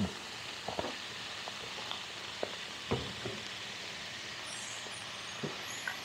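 Food sizzling in a pan, a steady hiss, with a few light clicks and knocks scattered through it.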